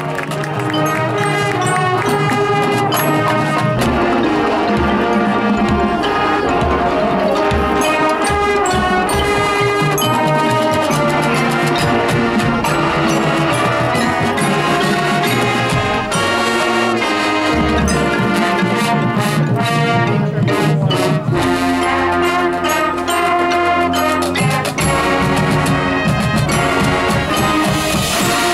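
High school marching band playing: a full brass section with sousaphones, backed by front-ensemble mallet keyboards and drums. There is a run of sharp percussion hits about twenty seconds in.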